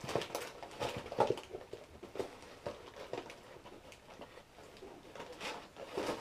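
Hands rummaging in an opened cardboard shipping box, rustling and crinkling the packaging inside in irregular bursts. It is busiest at the start and again near the end.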